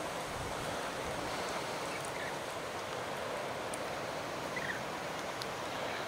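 Steady outdoor hiss, with a faint short bird chirp about two seconds in and another near the end.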